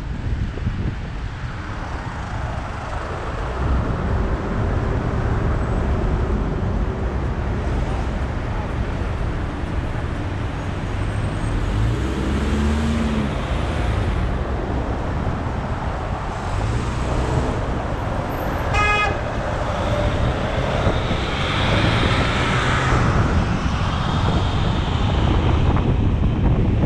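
Car driving through city traffic: a steady low road and engine noise with other cars passing. A short car horn toot sounds about two-thirds of the way through.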